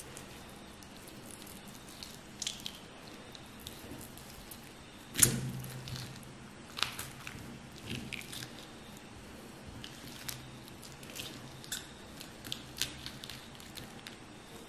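Small wet squishes and clicks of a raw frog's skin being peeled off by hand, with one louder thump about five seconds in.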